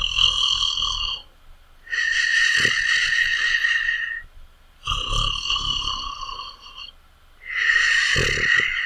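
Loud snoring in a regular breathing rhythm: a lower, rumbling snore alternates with a longer, breathy, higher-pitched breath, each lasting about two seconds, for two full cycles.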